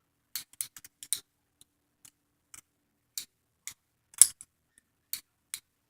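Lego-brick butterfly knife clacking as it is flipped open and shut: irregular sharp plastic clicks, several close together in the first second and the loudest a little after four seconds in.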